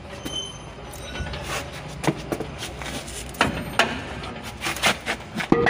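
Irregular metallic clicks and knocks from handling the rear wheel hub assembly of a Hino Dutro 130 HD truck by hand.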